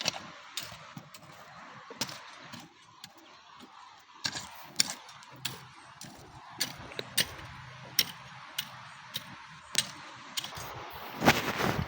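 A series of sharp, short strikes, roughly two a second and unevenly spaced, over a steady background hiss, with a louder rustling surge near the end.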